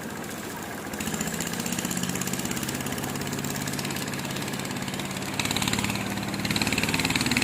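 An engine running with a steady rapid throb, growing louder about a second in, with two louder spells near the end.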